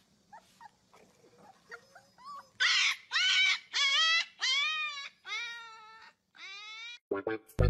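Husky puppies howling: a few faint whimpers, then about two and a half seconds in a run of six high howls, each falling in pitch, the last fading off.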